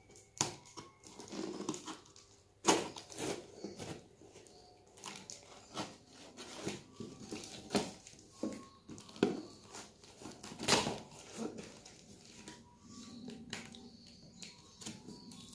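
A small knife cutting through packing tape on a cardboard box: irregular scraping and ripping with sharp clicks, loudest about three and eleven seconds in.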